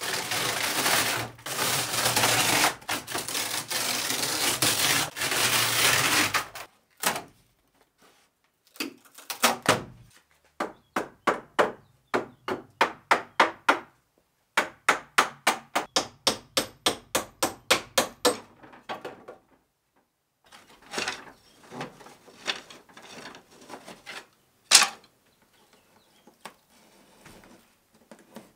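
Old wood veneer tearing and crackling as it is peeled off a cabinet panel by hand. Then two long runs of quick hammer blows on wood, about three strikes a second. Near the end come a few scattered scrapes and knocks, one knock much sharper than the rest.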